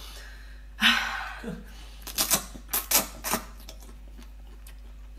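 Close-up mouth sounds of eating spicy octopus: a short sucking sound about a second in, then a quick run of sharp, wet smacking clicks from chewing.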